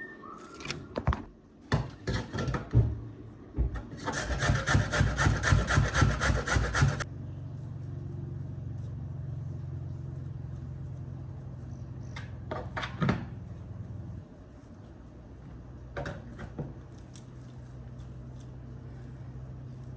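Scattered knocks, then quick rasping strokes, about five a second for three seconds, like something being scraped or filed. A steady low hum follows, with a few clicks.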